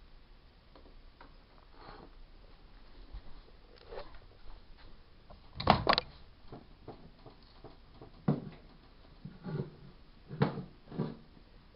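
Scattered handling knocks and clunks, the loudest a sharp double clunk about six seconds in, followed by several softer knocks.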